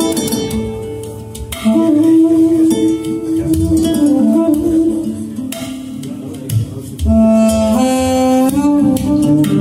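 Instrumental music played back through Apertura Edena floorstanding speakers driven by an Aiiuxity Int One Mk II integrated amplifier and heard in the room: long held melody notes that step up and down in pitch over an accompaniment, with louder phrases coming in about a second and a half in and again about seven seconds in.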